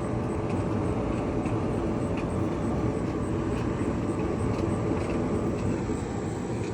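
Steady rushing of wind buffeting an unshielded microphone, mixed with air blowing out of a clothes dryer's outside exhaust vent as the dryer runs.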